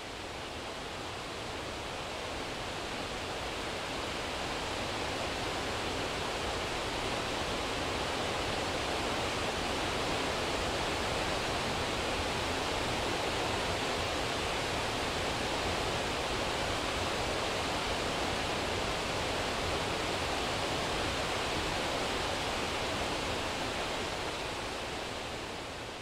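Steady rushing hiss of a wide curtain waterfall, with many thin streams pouring down a rock face into a pool.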